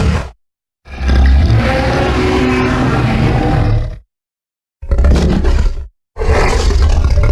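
Fan-made Godzilla roar sound effects, meant to sound bestial: one roar of about three seconds, then two shorter roars of about a second each, every one cut off into dead silence.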